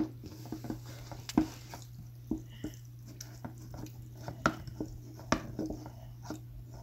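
Starch and water being stirred in a plate, with irregular light clicks and taps of the stirring utensil against the plate, over a steady low hum.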